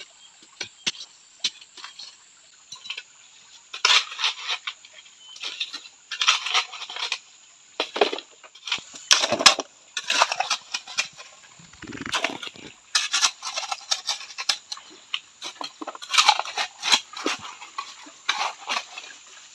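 Small steel shovel digging and scraping into hard clay on a riverbank, a run of irregular scrapes and sharp knocks. The clay is hard because it is mixed with stones and gravel.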